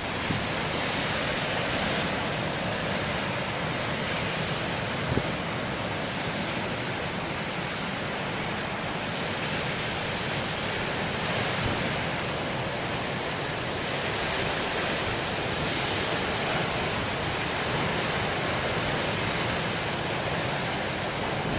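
Continuous rushing surf of big waves breaking along the shore, swelling and easing slightly but never stopping, with wind buffeting the microphone.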